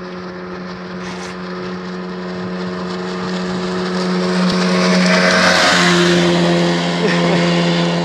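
Small one-person speedboat's engine running at a steady high speed as it passes close by. It grows louder to a peak about five seconds in, with the hiss of spray, and its pitch drops slightly as it goes past and away.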